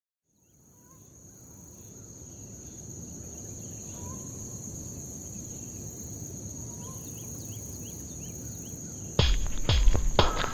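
Night insect ambience fading in: a steady high, unbroken trill over a low rumble, with scattered short chirps. About a second before the end, a run of heavy, booming percussive hits breaks in and takes over.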